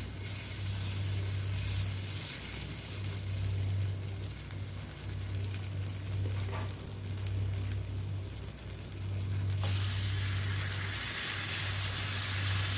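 Vegetable pancake batter sizzling as it fries in shallow hot oil in a nonstick frying pan, the sizzle getting louder about ten seconds in as a second spoonful of batter goes in. A low hum comes and goes underneath.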